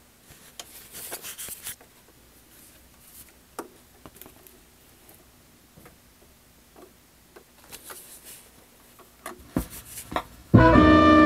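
Technics direct-drive automatic turntable cueing up an LP: faint clicks and rustles as the tonearm moves over the record, a few soft thumps as the stylus sets down about nine and a half seconds in, then jazz with brass and drums starting loudly from the record near the end.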